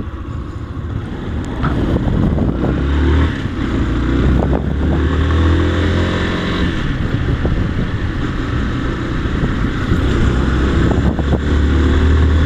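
Motorcycle engine running while riding, its note rising and falling with speed, with wind rushing over the microphone.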